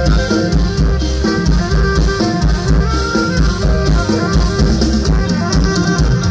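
Loud live band music from a mor lam stage show, with a drum kit keeping a steady beat under brass.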